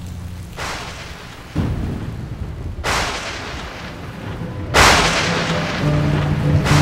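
Three sudden claps of thunder, each rolling off over a second or two, over a low rumble. Low sustained music notes come in near the end.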